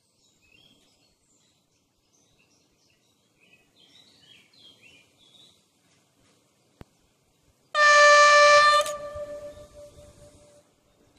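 Horn of a DB Class 628 diesel multiple unit sounding one loud blast on a single pitch for just over a second, a little under eight seconds in, then dying away over about two seconds as the railcar approaches.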